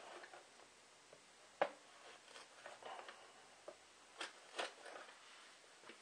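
Thin plastic wastebasket lid being cut through with a utility knife and the round cut-out worked free: faint scraping with scattered sharp plastic clicks and snaps, the loudest about a second and a half in and two more close together near the end.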